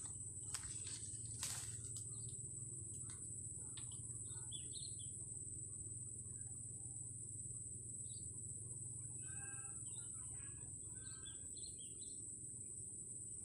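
A steady high-pitched insect drone with birds chirping over it: a few short calls about four seconds in and a busier run of chirps from about nine to eleven seconds in. A couple of faint clicks come near the start, over a low steady hum.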